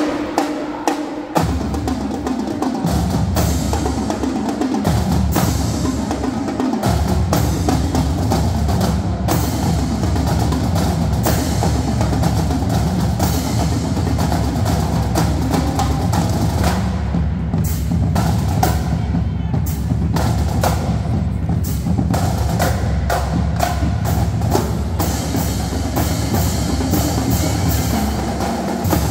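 Marching drumline playing a cadence on snare drums, multi-drum tenors, pitched bass drums and crash cymbals. It opens with about a second of sharp clicks before the bass drums come in, then keeps up a dense, loud pattern.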